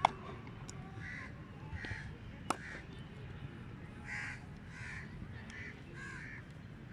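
Crows cawing repeatedly, with two sharp cracks of a cricket bat hitting the ball, one right at the start and the other about two and a half seconds later.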